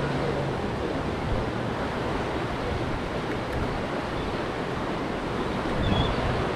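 Steady rush of rough water and surf breaking in the inlet below, with wind noise on the microphone.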